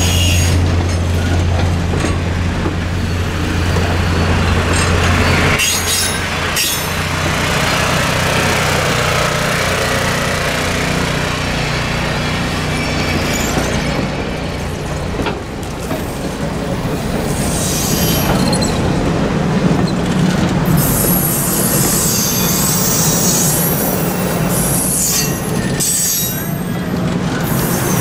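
Passenger cars of a steam excursion train rolling past on steel rails, with a steady rumble and occasional clicks from the wheels. High-pitched wheel squeal comes in during the second half.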